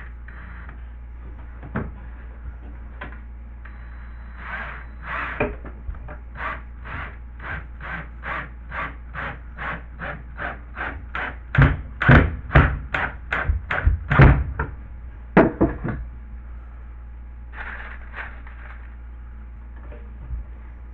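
Hand work on a drywall patch being screwed into place: a run of evenly spaced scraping strokes, about two a second, then several loud knocks against the wall about twelve to fifteen seconds in.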